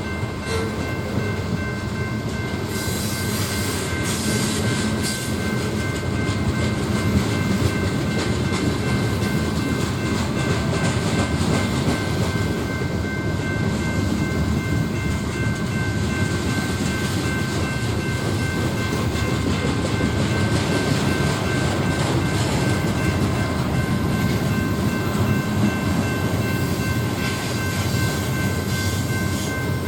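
Train rolling steadily past, wheels on rail making a continuous rumble with a constant high ringing whine over it.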